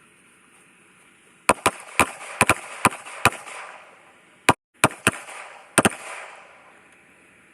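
Handgun shots from several shooters on a firing line: about a dozen sharp bangs at uneven spacing over roughly four seconds, each followed by a short echo.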